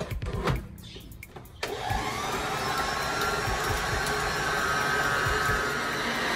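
A few knocks, then about a second and a half in an electric stand mixer starts and runs at a steady speed, its motor whining as it beats cake batter in a stainless steel bowl.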